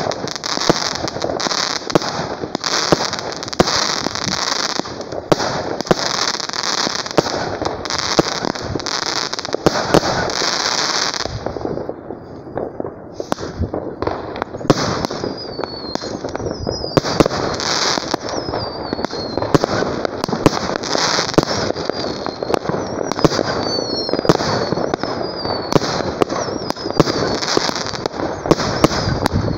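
Fireworks barrage: shells and comets fired from a launcher, bursting in rapid, dense succession with bangs and crackle. There is a brief lull about twelve seconds in, and short falling whistles run through the second half.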